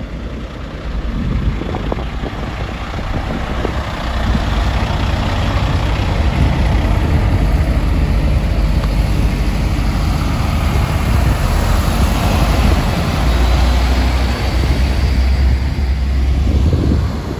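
Network Rail's Windhoff multi-purpose vehicle DR 98977, a water-jetting railhead treatment train, passing close along the platform: a steady low diesel drone under wheel-on-rail noise. It grows louder about four seconds in and eases near the end as the rear cab goes by.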